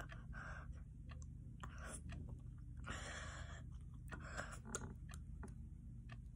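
Quiet mouth and eating sounds: a few short breaths drawn through the mouth and small clicks of lips and a plastic spoon as someone eats ice cream to ease a mouth burning from chilli heat.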